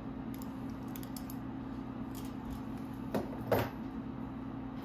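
Light clicks and taps of calipers and a pilot-light jewel being handled, with two sharper clicks about three seconds in, the second the loudest. A steady low hum runs underneath.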